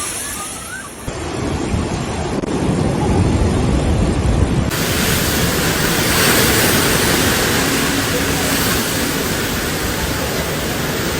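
Typhoon wind and rain: a loud, steady rushing noise with wind buffeting the microphone, changing abruptly about a second in and again near five seconds.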